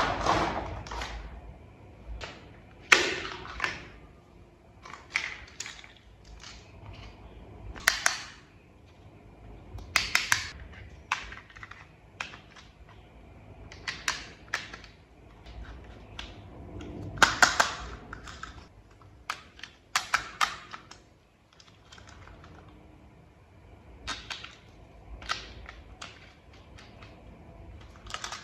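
Small plastic toy parts being handled and snapped together: irregular sharp clicks and taps, often two or three in quick succession, every second or two.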